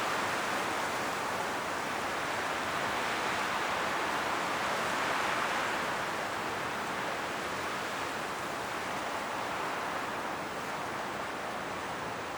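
Strong wind blowing through forest trees, a steady rushing of leaves and branches that swells and eases slightly.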